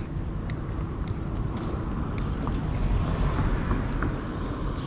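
Outdoor traffic noise with a vehicle passing, swelling about three seconds in, and small scattered clicks over it.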